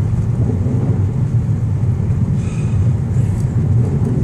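Steady low road and engine rumble inside a car's cabin while it drives along a snow-covered highway.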